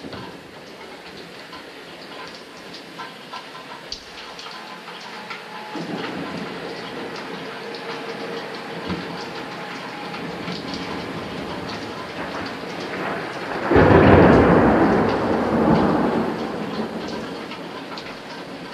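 Steady rain with scattered drop ticks. About three-quarters of the way through, a sudden loud clap of thunder breaks in and rumbles away over a few seconds.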